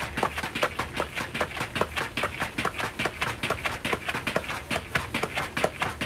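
Battle ropes slapping the floor in fast, alternating drum-roll waves: a quick, even patter of about six slaps a second.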